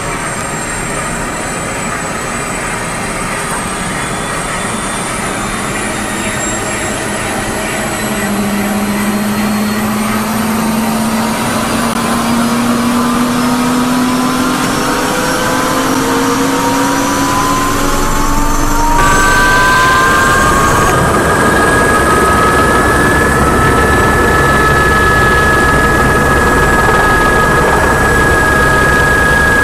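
Helicopter spooling up: a whine that rises steadily in pitch and grows louder for about twenty seconds, then levels off into a steady whine with a fast low pulsing underneath.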